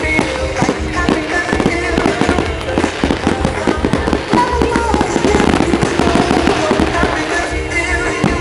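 A fireworks display: rapid bangs and crackles, densest in the middle, over loud music.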